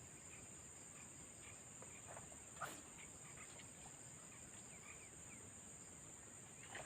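Near silence: faint outdoor ambience with a steady high hiss and a few faint scattered chirps, and one soft click about two and a half seconds in.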